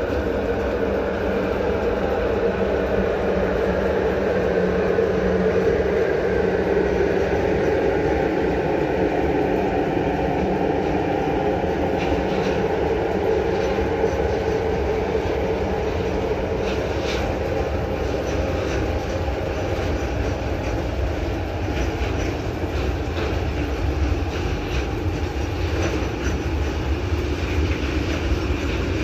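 A train running on the rails: a steady rumble of wheels and running gear, with faint light clicks in the middle stretch.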